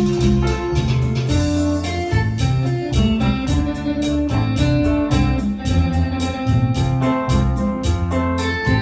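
Instrumental break in the song's backing track: an electronic keyboard with an organ-like sound plays the melody over a steady drum beat, with no singing.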